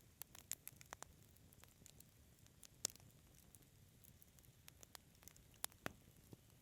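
Wood fire crackling in a fireplace: scattered sharp pops and snaps, a few in the first second, the loudest about three seconds in and two more near the end, over a faint low rumble.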